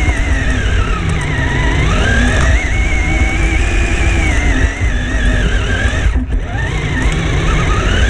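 Electric motor of an RC crawler whining, its pitch falling and rising with the throttle over a heavy rumble of the chassis and tyres pushing through grass, heard from a camera mounted on the car. The whine cuts out briefly about six seconds in.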